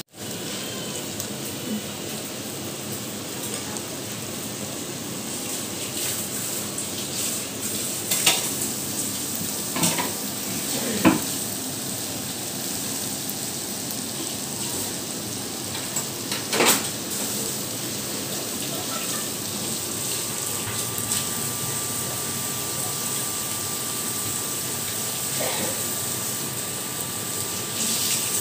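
Meat and seafood frying in butter on a foil-lined tabletop grill, a steady sizzling hiss, with a few sharp clinks of utensils.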